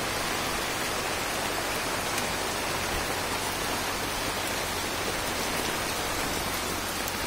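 Heavy monsoon rain falling on dense forest foliage and undergrowth, a steady even hiss.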